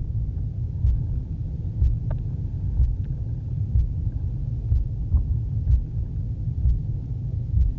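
Low, muffled underwater rumble with a heartbeat thumping steadily about once a second.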